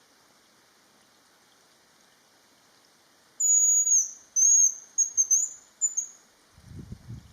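Hazel grouse singing its thin, very high whistled song: one longer, slightly falling note followed by a run of shorter notes. A faint low rumble starts near the end.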